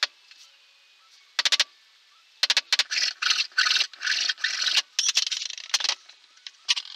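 A single knock right at the start, then a gloved hand rubbing an MDF panel in quick strokes: a dry scraping sound in short bursts, once briefly and then in a steady run for about three seconds.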